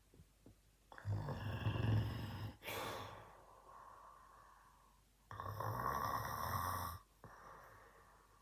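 A man snoring loudly in his sleep: two long snores, one about a second in and another just past the middle, each with a low fluttering rattle and each followed by a softer breath that fades out.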